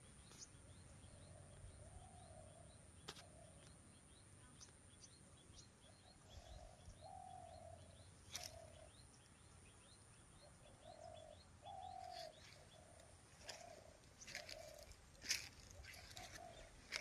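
A dove cooing faintly, short phrases of a few low notes repeated every few seconds, with faint small-bird chirps and a few sharp clicks.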